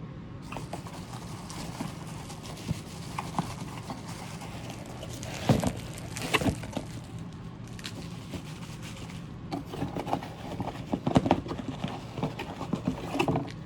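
Irregular taps, knocks and rustles of cardboard packaging and paper inserts being handled, with two louder knocks about five and a half and six and a half seconds in and a run of smaller taps near the end.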